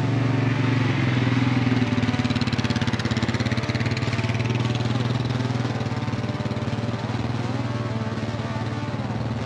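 Polaris Sportsman ATV engine running steadily at low speed as it tows a loaded trailer carrying a chicken coop past, loudest as it goes by close and easing off slightly as it pulls away.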